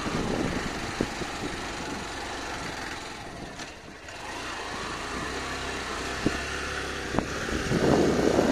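Motorcycle engine labouring up a steep dirt hill road in first gear, with road noise; it dips briefly about halfway through and picks up again, with a few sharp knocks from the rough surface.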